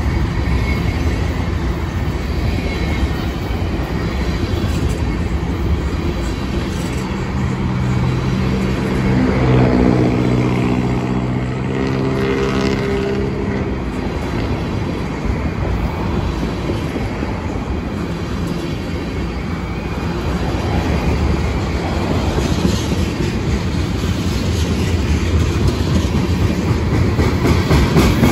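Freight cars of a CSX freight train rolling past on the rails, a steady heavy rumble with wheels clicking over the rail joints. The clicking grows louder near the end. A humming tone with several pitches sounds for about five seconds around the middle.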